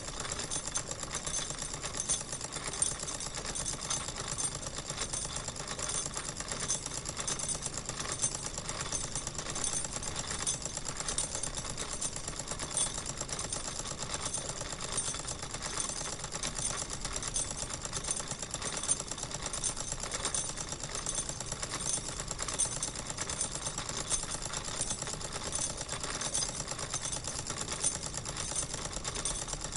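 Wilesco live-steam model engine running steadily, with a fast, even mechanical beat.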